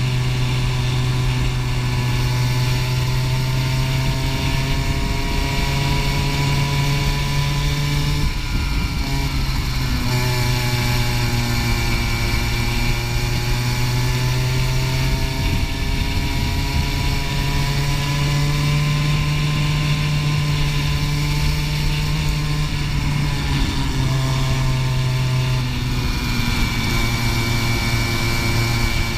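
Racing kart engine heard from on board, running hard through a race, its pitch rising and falling as the kart accelerates and slows for corners. The revs drop and build again about eight seconds in and once more about twenty-four seconds in.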